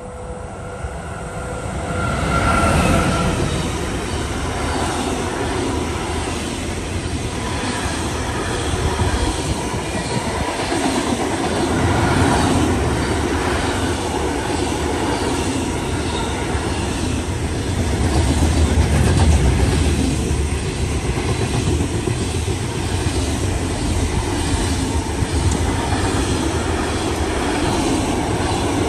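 A train passing close by on a main line. Its noise builds over the first couple of seconds and carries on unbroken.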